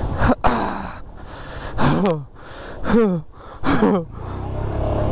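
Men's short, straining shouts, each falling sharply in pitch, as they heave a half-submerged motorcycle through a stream crossing. There are four of them in about four seconds. Near the end a steady engine sound starts up.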